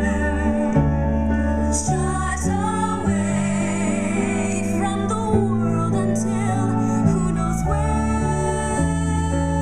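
Young women's voices singing a musical-theatre number together over instrumental accompaniment, with a held note wavering in vibrato in the middle.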